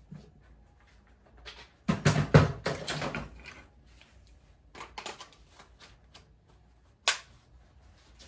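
Knocks and clatters of hand tools being handled and set down, loudest in a cluster about two seconds in, with a single sharp click about seven seconds in.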